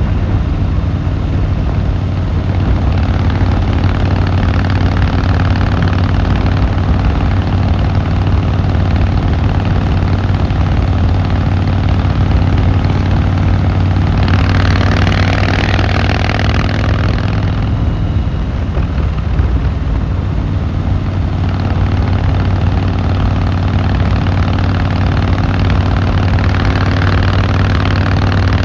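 Harley-Davidson Fat Boy Lo's V-twin engine and exhaust running at a steady, even pitch. A rush of noise joins it about 14 s in and fades a few seconds later.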